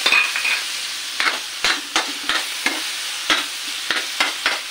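Diced chicken, onion and garlic sizzling in oil in a metal pan as they are sautéed, with a utensil clacking and scraping against the pan about ten times, irregularly, as the food is stirred.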